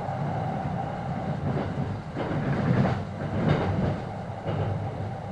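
Electric commuter train running at speed, heard from inside the upper deck of a double-deck Green car: a steady rumble of wheels on rail, with a louder stretch of clattering about halfway through.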